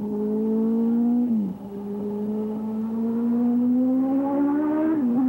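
A racing superbike's engine pulling hard at high revs. Its pitch climbs steadily and drops briefly at an upshift about a second and a half in, then climbs again to a second upshift near the end. It grows louder over the first second, then holds.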